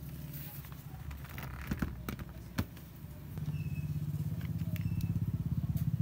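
A low, pulsing engine hum that gets louder about halfway through, with a few sharp clicks in the first half.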